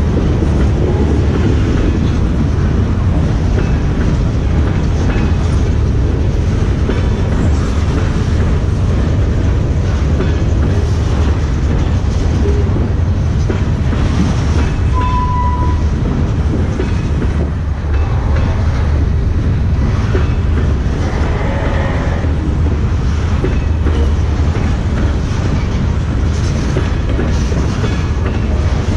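A freight train of covered steel-coil cars rolling past close by: a steady heavy rumble with wheels clicking over the rail joints, and a brief high tone about halfway through.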